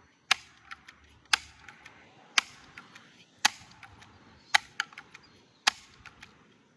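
Sharp clicks at an even pace, about one a second, with fainter ticks in between.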